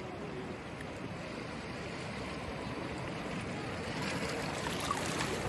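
Shallow waves washing in over wet sand at the water's edge, with wind on the microphone: a steady hiss that grows a little louder near the end.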